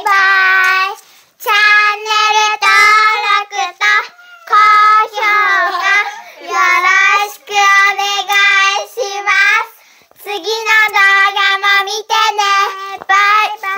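Children singing a short tune without accompaniment, in phrases of held notes with brief pauses between them.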